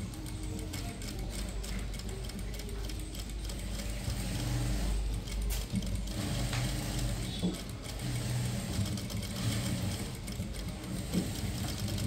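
Industrial single-needle sewing machine stitching through heavy embroidered lehenga fabric with a rapid needle clatter over a steady motor hum. The stitching runs in stretches that start and stop every second or two.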